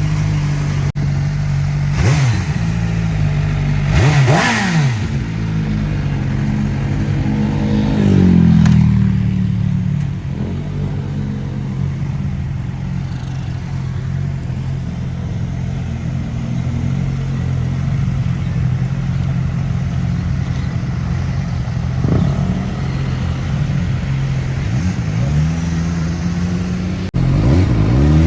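CFmoto Voom 500SR's 499 cc inline-four engine idling steadily and being blipped: short revs about two seconds in and twice around four seconds, a longer rev about eight seconds in that falls back to idle, another blip after twenty seconds, and a rev building near the end.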